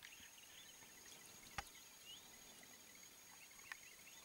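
Near silence: faint outdoor ambience with scattered high, short bird chirps and a thin steady high whine, with one sharp click about a second and a half in.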